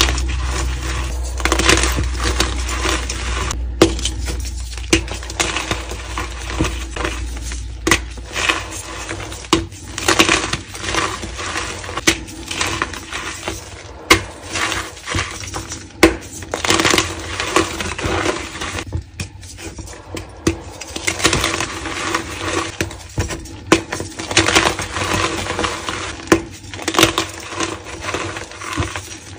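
Dyed gym chalk crushed and crumbled in bare hands: dense, irregular, crisp crunching and crackling as the chalk breaks up and the powder is squeezed.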